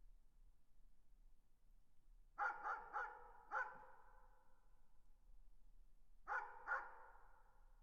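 A dog barking in the distance: a quick run of four barks about two and a half seconds in, then two more near the end, each trailing off in an echo.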